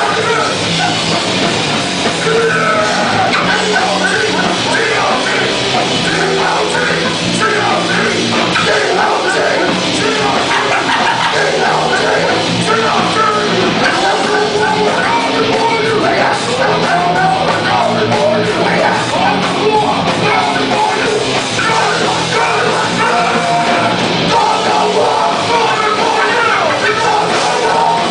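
Hardcore band playing live: loud distorted guitar and drums, with shouted vocals over the top.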